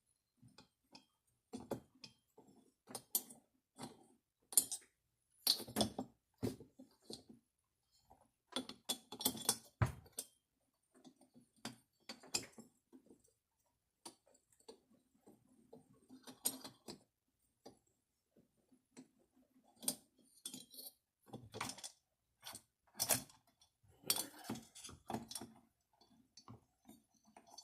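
Scattered light metal clinks, taps and rattles of chainsaw engine parts being handled and worked loose by hand during disassembly of a Holzforma G466 (Stihl 046 clone).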